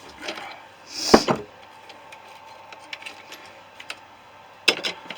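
Metal clanking and clinking as parts of a gutted refrigerator compressor are knocked and handled: one sharp knock about a second in, light ticks after it, and a quick cluster of clinks near the end.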